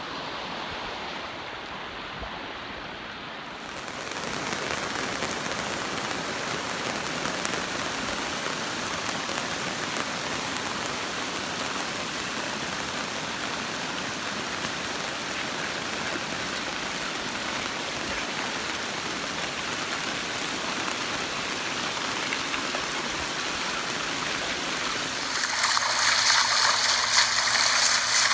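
Storm runoff water rushing and splashing in a steady, even noise mixed with rain. It grows fuller about three and a half seconds in, and shifts to a louder, brighter rush near the end.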